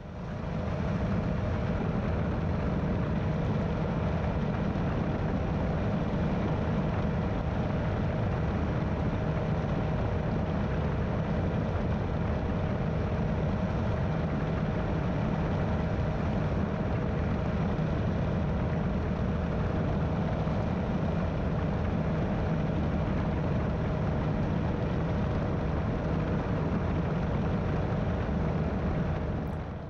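Steady drone of an Airwolf powered parachute's engine and propeller in cruise flight, mixed with wind rushing past the camera. It fades in at the start and fades out near the end.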